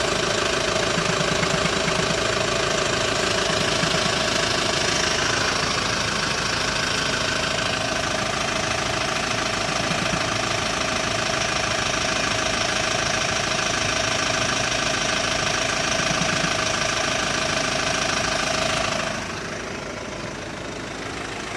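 Hyundai ix35 diesel engine idling cold during warm-up, with an irregular knock that the owner says comes only while the engine is cold and goes once it is warm; the dealer has not found the cause. About nineteen seconds in the sound gets quieter and duller.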